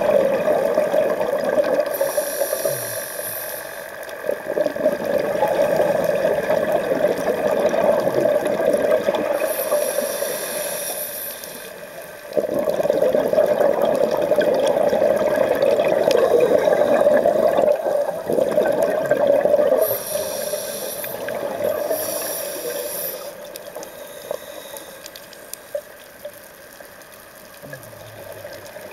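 A scuba diver's regulator breathing underwater: long rushing, gurgling streams of exhaled bubbles, broken by a few short hissing inhalations. It grows quieter near the end.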